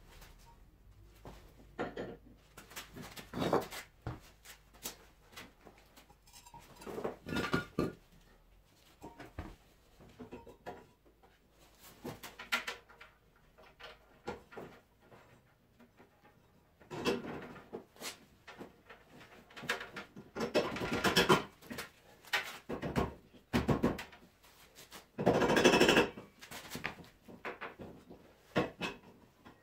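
Irregular knocks, scrapes and clatter of a scooter's front wheel being fitted into the fork and the metal axle being pushed through its hub, with louder handling bursts scattered among quieter gaps.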